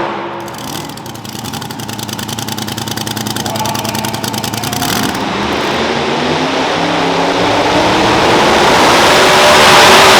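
Super modified two-wheel-drive pulling truck's engine. It drops from a loud run to a lumpy idle with a fast, even pulsing, then revs up and builds to a loud, steady run over the last few seconds.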